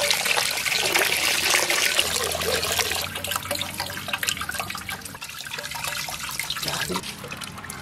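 Rice beer trickling and splashing into an aluminium pot as it is strained through a cloth sack. The flow is heaviest over the first three seconds and then thins toward the end.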